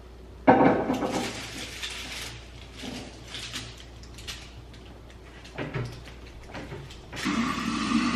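Handling noises from clearing out an old flower arrangement: a sudden rustle and clatter about half a second in, a few smaller knocks and rustles after, then a steady rushing noise that starts near the end.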